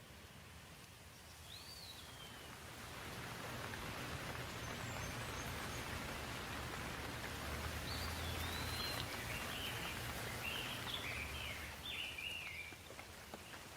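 Steady rain falling, swelling a couple of seconds in and easing off near the end, with a bird chirping a few times over it in the second half.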